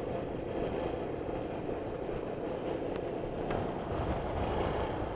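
Honda Bros 160 motorcycle riding at a steady speed: its single-cylinder engine running under steady wind rush on the action camera's microphone.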